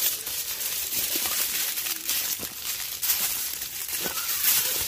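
Aluminium foil crinkling and rustling as it is folded and wrapped around a fish.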